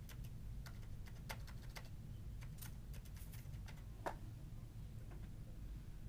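Faint, irregular clicks and ticks over a low steady hum, the sharpest about four seconds in.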